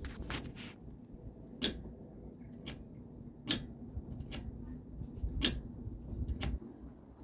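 A series of sharp clicks at irregular intervals, about eight in all, over a faint low hum.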